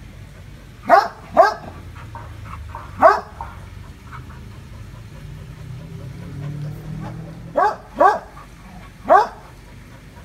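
A dog barking at a monitor lizard in single sharp barks, each dropping in pitch. Three barks come in the first three seconds and three more near the end.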